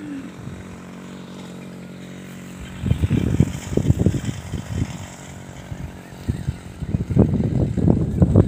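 A steady low hum for about the first three seconds, then irregular gusts of wind buffeting the microphone.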